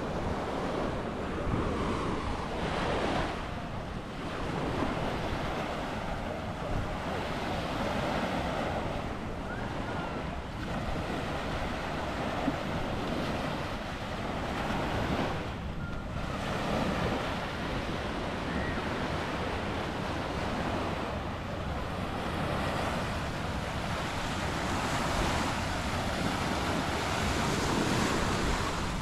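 Ocean surf washing onto a beach, a continuous rush of waves that swells and eases, with wind buffeting the microphone.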